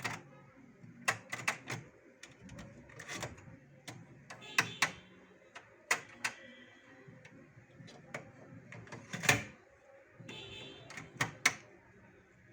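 Irregular sharp clicks and knocks, about twenty of them, from someone handling a Sony MHC-RG270 mini hi-fi while its music is stopped. The loudest, longest knock comes a little past nine seconds in.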